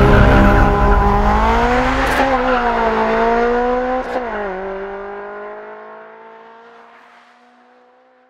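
Honda Integra Type R's four-cylinder B20 VTEC engine, built with a B20B block, Type R head and Skunk2 Pro 1 cams, accelerating hard away through the gears. Two gear changes, about two and four seconds in, each bring a brief click and a dip in pitch. The sound fades steadily as the car pulls away.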